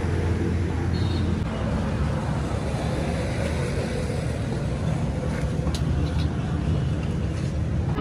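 Tractor engine running steadily. Its low, even note is clean for about the first second and a half and then turns rougher.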